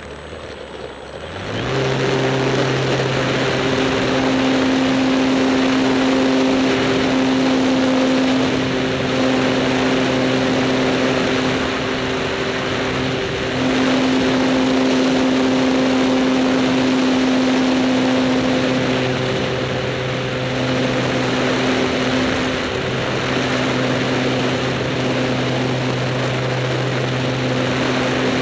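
Electric motor and propeller of an Apprentice S 15e model airplane, heard from right on its wing: the motor spools up about a second and a half in for takeoff, then runs at a steady high throttle with a constant hum and a rush of air over the microphone.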